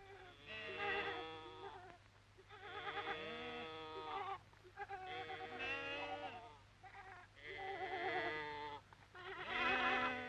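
A flock of sheep bleating, about five long, quavering bleats one after another.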